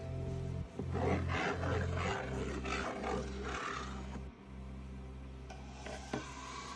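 Background music with a low bass line that steps between notes, and a rough rasping, rustling noise over it for the first few seconds.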